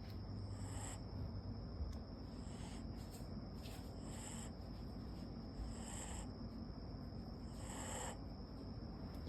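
Siberian Husky puppy snoring softly in its sleep: faint rasping breaths about every two seconds.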